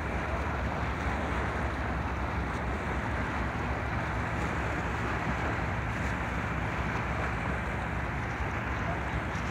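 Wind buffeting the microphone: a steady rushing noise over a low, even rumble.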